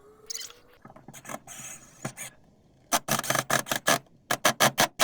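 Wood being worked by hand with quick rasping strokes: a dense burst about three seconds in, then a run of about six quick strokes near the end.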